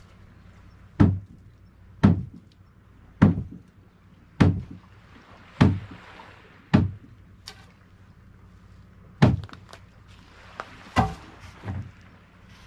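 Heavy thuds as a small fishing boat is hauled up from the water into a boathouse: six evenly spaced knocks about one a second, then after a pause a few more near the end.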